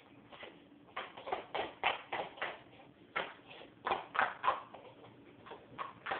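A utensil clacking against a hand-held bowl in a quick, irregular run of knocks, a few a second with short pauses, as when pancake batter is being stirred.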